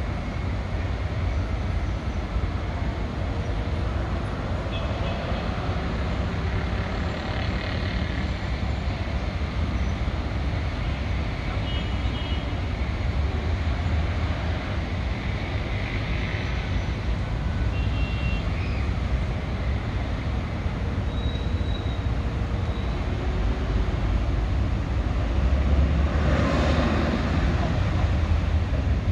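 Steady traffic on a busy city road: a continuous low rumble of engines and tyres, swelling louder near the end as a heavier vehicle passes.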